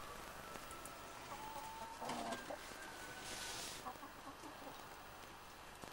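Chickens clucking faintly, a few short calls in the first half, with a brief hiss a little after three seconds in.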